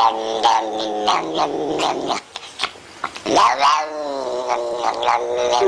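A cat yowling in long, drawn-out wails. A short break comes about two seconds in before a second long yowl.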